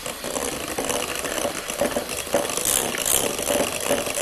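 Electric hand mixer running steadily, its beaters whipping an egg into creamed butter and sugar in a glass bowl, with repeated knocks of the beaters against the bowl.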